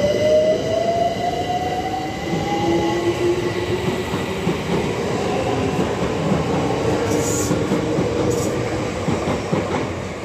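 London Overground Class 378 Electrostar electric train pulling away and accelerating. Its traction motors give a whine that climbs in pitch over the first few seconds, then a second, lower whine rises in turn, over the rumble of the wheels on the rails.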